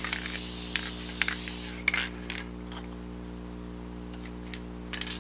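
Aerosol can of Gorilla spray adhesive hissing for nearly two seconds, then stopping, with scattered light clicks and taps of the can and foam pieces being handled.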